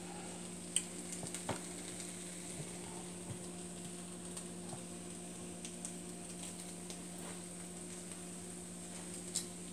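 Shrimp, broccoli and cauliflower sizzling faintly in a non-stick wok as a silicone spatula stirs and tosses them, with a few light taps of the spatula on the pan, the sharpest about a second in and near the end. A steady low hum runs underneath.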